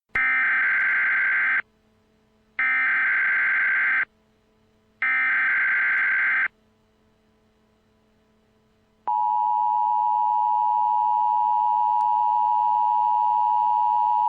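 Emergency Alert System signal: three short bursts of warbling digital header data, each about a second and a half with a second's pause between. About nine seconds in, the steady two-tone attention signal begins, announcing an urgent warning, here a tornado emergency.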